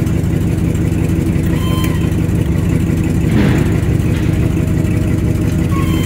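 The 1970 GMC C30 plow truck's engine running steadily, heard from inside the cab, with a brief rushing noise about three and a half seconds in.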